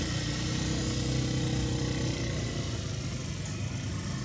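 A motor engine running steadily, a low even hum that holds its pitch.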